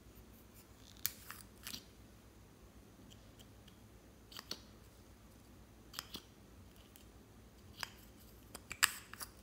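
Scattered sharp plastic clicks and taps from a pink eyeshadow tube being handled, with a quick run of louder clicks near the end as the tube is twisted open.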